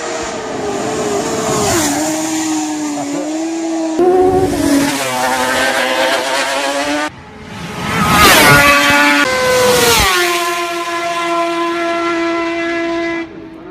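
Suter MMX 500 two-stroke V4 racing motorcycle passing at full speed in several short flyby clips spliced together. In each pass its high engine note drops in pitch as it goes by.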